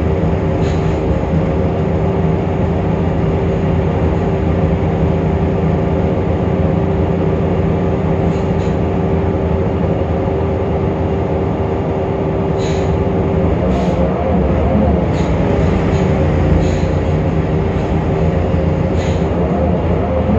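Temsa Avenue LF city bus running, its DAF PR 228 diesel and ZF Ecolife automatic gearbox giving a steady whine that wavers and shifts in pitch about two-thirds of the way through, over a low drone with occasional sharp clicks and rattles. This is the bus's unusual sound, different from others of its type.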